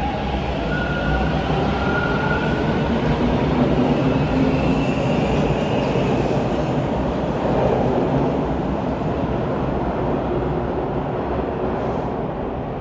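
TTC Bombardier T1 subway train moving through the station: steady wheel-and-rail running noise with faint, shifting tones from the train.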